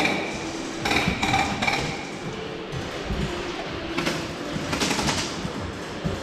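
Gel blaster skirmish: several short bursts of sharp knocks from blasters firing and gel balls striking the plywood barricades, with a quieter stretch in the middle.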